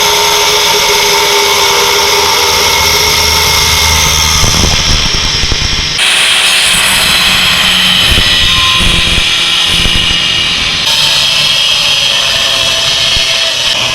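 A small motor running loudly and steadily, in three spliced clips that cut sharply at about six and eleven seconds in.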